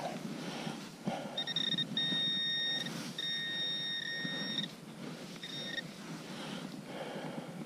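Handheld metal-detecting pinpointer sounding a steady electronic tone as it is held over a buried metal target in the dug hole. The tone comes in three stretches with short breaks, lasting about three seconds in all, then a brief repeat about a second later. The rustle of gloved hands working loose soil sits underneath.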